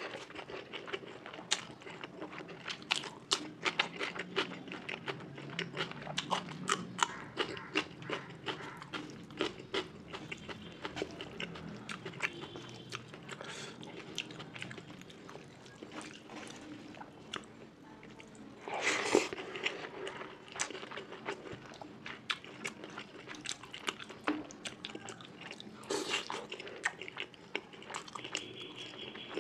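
A person eating close to the microphone: steady chewing with many small mouth clicks and smacks. There are two louder crunchy bites, one about two-thirds of the way through and another near the end.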